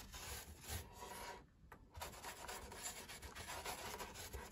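Paintbrush scrubbing watery filler into the joints of a polystyrene model wall: faint, rapid rubbing brush strokes, pausing briefly about a second and a half in.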